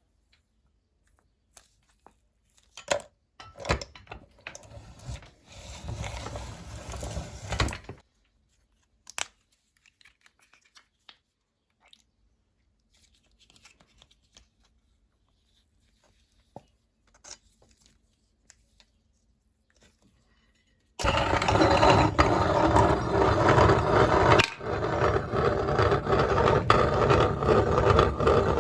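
Scattered scrapes and knocks of objects being handled, then about two-thirds of the way through a meat grinder switches on and runs loudly and steadily.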